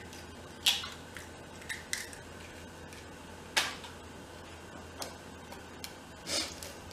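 Several sharp clicks and taps, two of them louder than the rest, as an egg is cracked against a stainless steel mixing bowl and its shell pulled apart.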